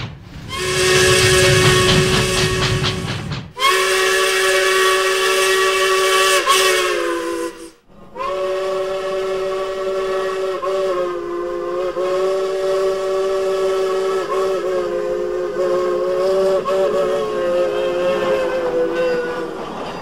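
Steam locomotive chime whistle sounding a chord of several notes, blown three times: a short blast with steam hiss under it, a second blast of about four seconds, then a long held blast that wavers slightly in pitch.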